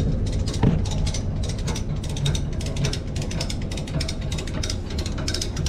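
A heavy-duty ratchet strap being cranked, its pawl clicking in a rapid, uneven run as the strap is tightened to pull a car off a trailer.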